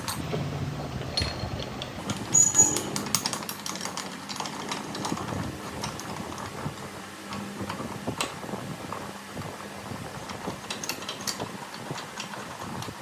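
Manual metal lathe running with a steady low hum, with scattered metallic clicks and clinks. A louder ringing metallic clink comes about two and a half seconds in.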